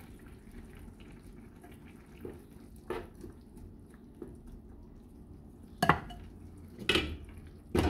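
A spoon stirring diced carrot into ground-beef picadillo in a skillet, with faint taps and scrapes. Then three sharp clanks of cookware about a second apart, the first and loudest about six seconds in.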